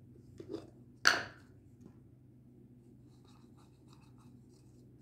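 A plastic jar of baby petroleum jelly being handled and opened: a sharp clack about a second in, after a couple of softer knocks, followed by faint light scratching and rubbing.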